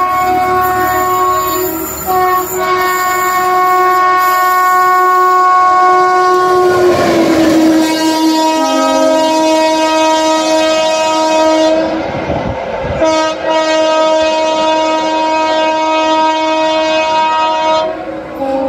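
Horn of an Indian Railways WAP-7 electric locomotive sounding in long, steady blasts of several tones together. It breaks off briefly about two seconds and about thirteen seconds in, and its pitch steps down slightly about seven seconds in.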